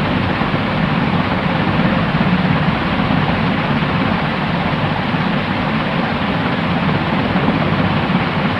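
Continuous white-noise track: a steady, unchanging rush, fuller and deeper than a bright hiss, with no breaks or rhythm.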